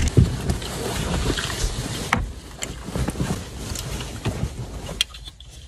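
Fabric rustling as a white lab coat is pulled on over clothing, with handling knocks and a few sharp clicks; it dies down near the end.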